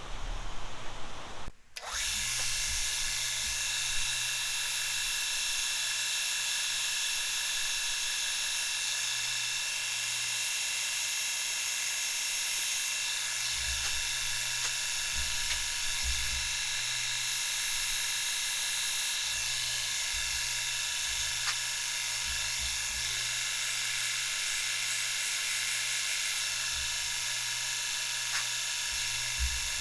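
Bucktool bench grinder running steadily with a wedge pressed against it and being ground thinner: a continuous high grinding hiss over a low motor hum, starting after a brief dip about two seconds in.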